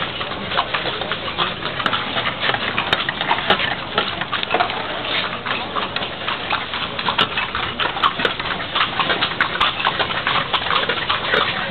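Horse's hooves clip-clopping on a paved street, heard from aboard a horse-drawn carriage as it rolls along, with the carriage rattling throughout.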